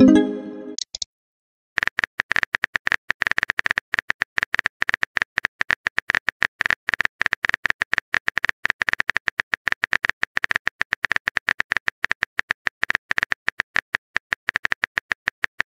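Texting-story app's sound effects: a short electronic message-sent tone at the start, then, after a brief pause, a long run of rapid phone-keyboard typing clicks as a reply is typed out letter by letter.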